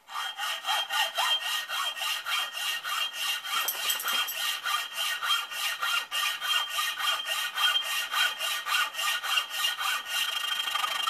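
Hand hacksaw cutting through a steel Yankee screwdriver shaft clamped in a bench vise, in an even back-and-forth rhythm of rasping strokes with a steady high metallic ring over them. The blade bites in well, which the maker takes as a sign the shaft is not hardened steel. Near the end the strokes come much faster and run together.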